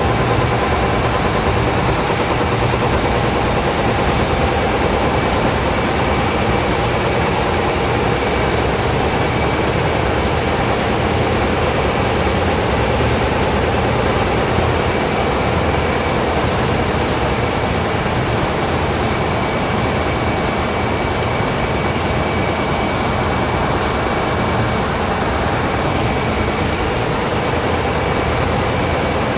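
Diaper production line machinery running: a loud, steady mechanical din with a few thin, steady whines on top.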